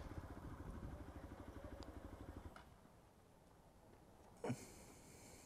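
Motorcycle engine idling with an even, rapid putter that stops about two and a half seconds in. A single sharp knock follows near the end.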